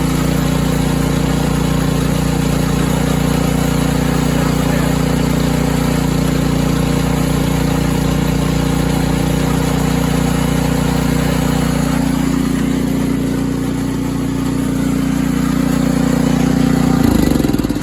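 Ariens Compact 24 snowblower engine running steadily after a fresh start, its level dipping briefly and then rising again; near the end it is shut off and winds down.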